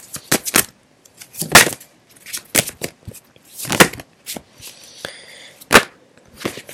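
Tarot deck being shuffled by hand: irregular sharp slaps and snaps of the cards, the loudest about one and a half, four and six seconds in.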